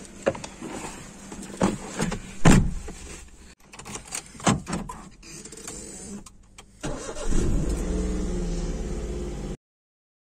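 A few knocks and handling clicks, the loudest about two and a half seconds in. About seven seconds in a vehicle engine starts and runs steadily until the sound cuts off abruptly near the end.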